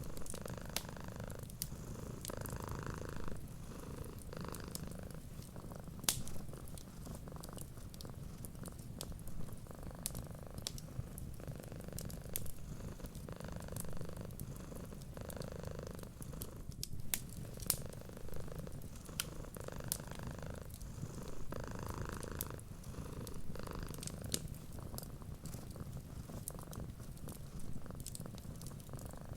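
A cat purring steadily, the purr swelling and easing in slow cycles with its breathing, over the scattered sharp crackles and pops of a wood fire.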